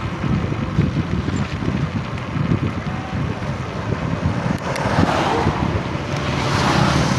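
Wind buffeting the microphone over road traffic noise, with a louder rushing hiss swelling from about five seconds in.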